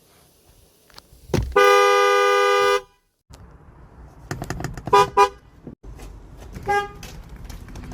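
Car horn of an FCA (Fiat Chrysler) vehicle: one steady two-note blast a bit over a second long about a second and a half in, then two quick toots about five seconds in and one short toot near the end.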